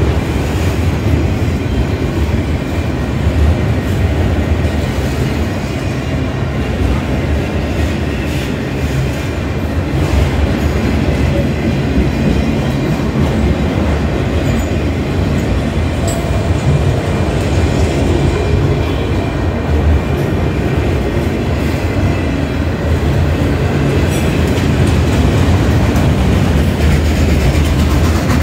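Freight train of autorack cars rolling past at close range: a steady, loud rumble of steel wheels on the rails, with occasional clacks.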